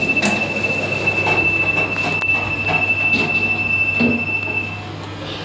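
Express passenger lift in motion: a steady high-pitched squeal runs until about five seconds in, over irregular rattles and knocks from the car, on a ride the rider calls violent.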